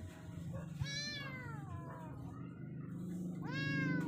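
A kitten meowing twice. The first meow, about a second in, is long and slowly falling; the second, near the end, rises sharply and then falls.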